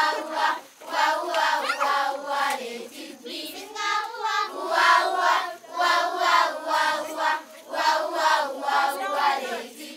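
A group of children singing a rhythmic song together in repeated short phrases, with hand claps keeping the beat.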